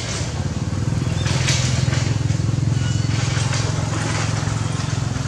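A motor engine running steadily with a low hum, with a few brief hissy swells over it.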